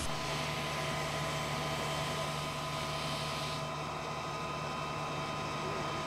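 Hiss of a fire hose's water jet spraying onto burnt grass, which stops about three and a half seconds in, over a steady engine hum.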